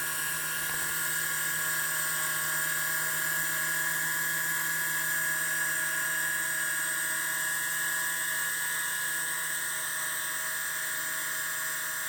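High-speed spindle motor of a 3DPRN-LAB CNC running with a steady high whine while routing 4 mm balsa sheet.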